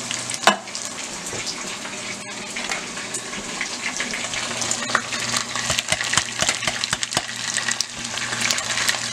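Ground beef and kidney beans sizzling in a pot on the stove, with a wooden spoon scraping and knocking as the beans are emptied from the can and stirred in. Scattered clicks and knocks, the sharpest about half a second in.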